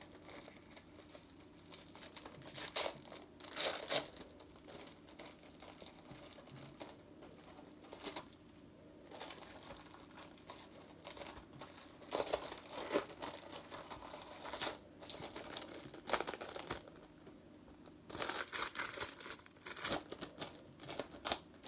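Packaging crinkling and tearing by hand in irregular bouts, separated by quieter pauses, as a model bus is unwrapped.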